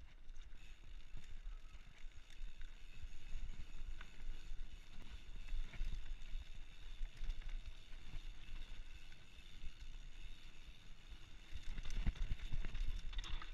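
Specialized Stumpjumper FSR Camber full-suspension mountain bike rolling down a dirt singletrack. Its tyres rumble over the ground and the bike rattles and knocks on the bumps, with a cluster of harder knocks near the end, over a steady high hiss.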